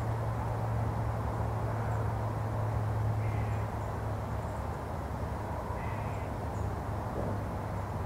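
Outdoor ambience: a steady low hum under a soft noise bed, with two faint short bird calls, about three and six seconds in.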